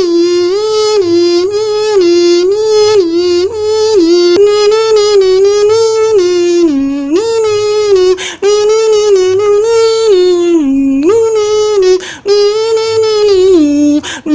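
A mouth-made sound effect: one held, pitched vocal tone that steps up and down between a few close notes in a repeating tune, broken only by short gaps about 8 and 12 seconds in.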